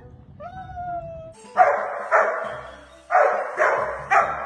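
A dog gives a short drawn-out whine, then barks sharply five times, two barks and then three.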